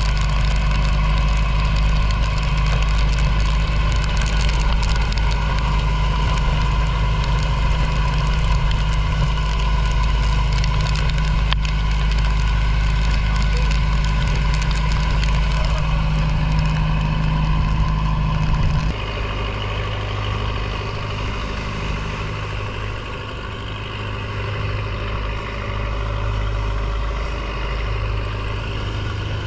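Fishing boat's motor running steadily at constant speed. About two-thirds of the way through, the sound changes abruptly and runs on quieter, at a lower setting.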